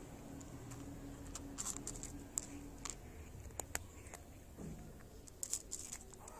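A cat eating from a plate: irregular, faint crunches and clicks of dry kibble being chewed, a few louder ones near the middle and towards the end.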